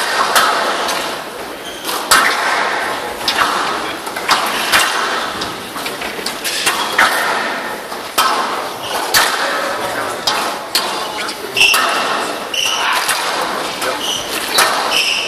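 Squash rally on a glass-walled court: the ball cracks sharply off rackets and walls in irregular knocks, roughly one a second. Behind it is crowd noise that echoes in a large hall.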